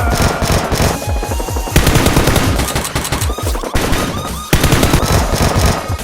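Rapid, continuous automatic gunfire sound effects over background music.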